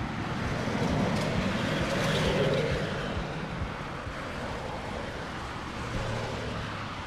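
Street traffic noise: a passing vehicle swells to its loudest about two and a half seconds in, then fades back to a steady traffic rumble.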